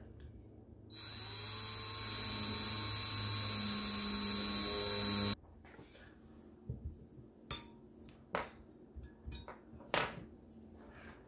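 Cordless drill running for about four seconds, spinning up and then holding steady before stopping abruptly, as it turns a Helicoil insertion tool to drive a thread-repair coil into a bolt hole in a small-engine cylinder. A few light knocks and clicks follow as the engine part is handled.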